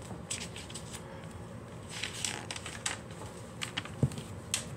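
Paper pages of a spiral-bound sketchbook rustling as they are handled and turned, a few short crackles at a time, with a soft thump about four seconds in.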